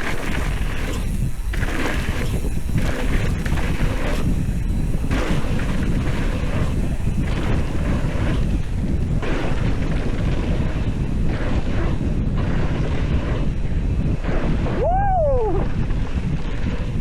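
Wind rushing and buffeting across the microphone, with the low rumble of a mountain bike rolling fast over a dirt trail. About two seconds before the end, a short falling tone cuts through.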